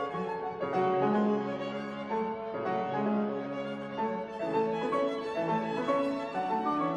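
Instrumental background music: a slow melody of held notes, played on bowed strings with piano.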